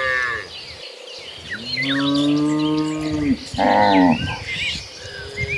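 A herd of cattle mooing, several cows calling one after another. A long, low moo in the middle is followed by a shorter, higher, louder one, with another starting near the end.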